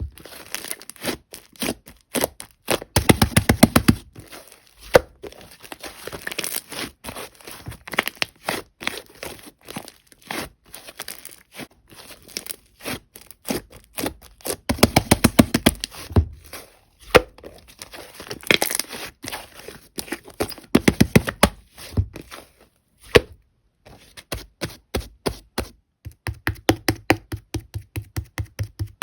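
Clear slime being squeezed and poked by hand, giving rapid runs of wet clicks and pops in bursts a second or two long, with short pauses between.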